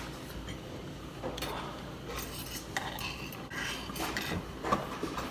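Utensils clinking and knocking against a bowl while someone eats soup: a scatter of short light clinks with a few soft scraping or slurping noises between them.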